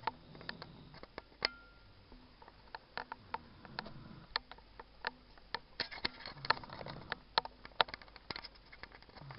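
A sleeping baby snoring softly: slow, low breaths that swell and fade every few seconds. Many small sharp clicks, louder than the snoring, sound in between.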